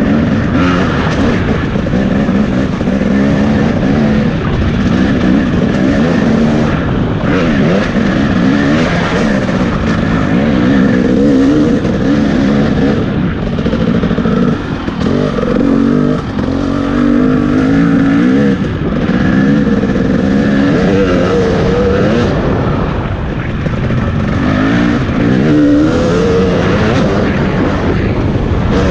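Off-road dirt bike engine revving up and down over and over as it is ridden around a rough course, the pitch climbing and dropping every second or two.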